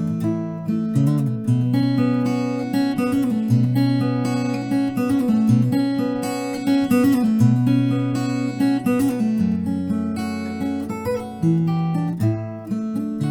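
EnneGi goldtop electric guitar playing with a clean tone, held low notes under changing strummed chords and single-note melody lines.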